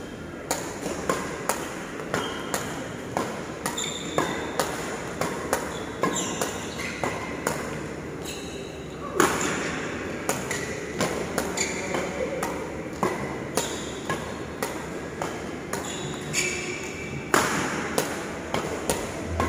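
Badminton rackets striking shuttlecocks about twice a second in a fast feeding drill, with court shoes squeaking on the floor between hits. Two harder hits stand out, about nine and seventeen seconds in.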